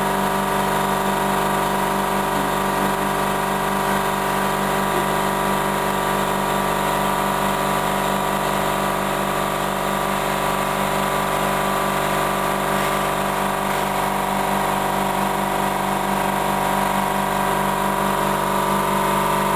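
Steady machine hum from a milling machine converted to AC servo drives, holding several fixed pitches without speeding up or slowing down.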